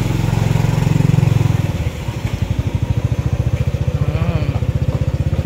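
Motorcycle taxi's engine running under a passenger, a low, evenly pulsing putter. About two seconds in it eases off to a lower, more distinct beat.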